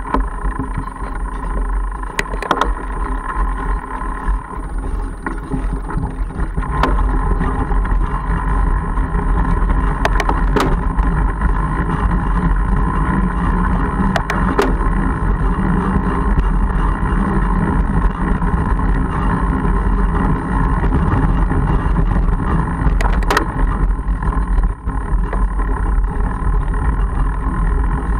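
Wind rushing over the camera microphone and the fat-bike tyres rolling on a gravel track, with a few sharp clicks and rattles from the bike; the noise grows louder about seven seconds in and then holds steady.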